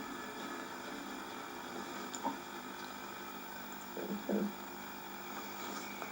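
Quiet room tone with a steady faint hum, a single soft click about two seconds in, and a brief soft voice-like sound about four seconds in.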